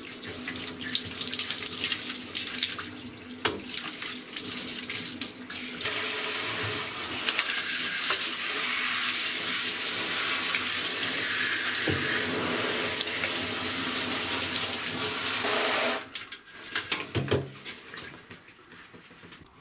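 Water running from a shower head over black plastic cassette-deck panels being rinsed by hand, with knocks of plastic handling. About six seconds in the flow becomes a stronger steady rush, which cuts off about four seconds before the end, leaving a few knocks of the parts being handled.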